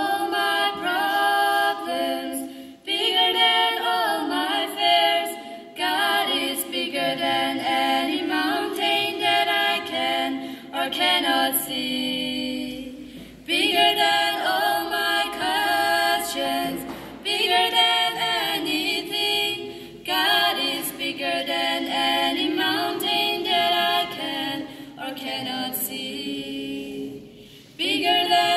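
Two girls singing together without accompaniment, in long held phrases with short breaks for breath between them.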